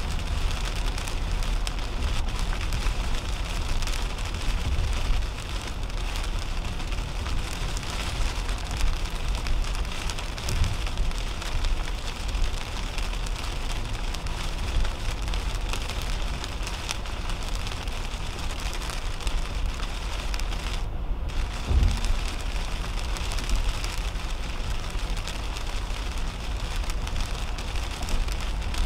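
Rain striking a 2010 Toyota Camry's windshield and roof at highway speed, heard inside the car as a steady hiss full of small drop ticks over a low rumble of tyres on wet pavement. The rain hiss drops away for a moment about two-thirds of the way through.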